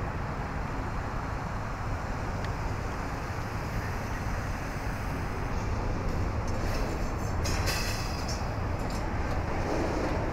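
Freight train cars rumbling steadily, with high metallic squeals and screeches of steel wheels on rail coming in about six seconds in.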